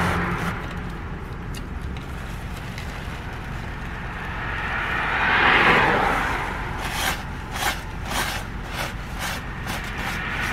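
A car passes at the start and again about halfway through, each a smooth rise and fall of noise. From about seven seconds in come a dozen or so sharp crackles: the crusty baguette of a banh mi being bitten and chewed.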